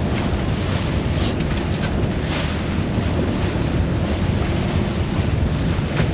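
Steady wind buffeting the microphone over the rush of waves aboard a small sailboat.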